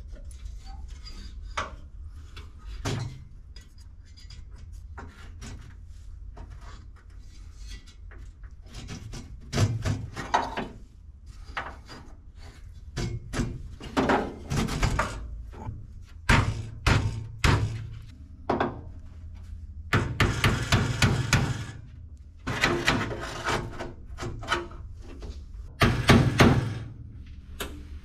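Irregular knocks, scrapes and rattles of an aluminium AC condenser being pushed and worked into a pickup truck's steel radiator core support, busier and louder in the second half.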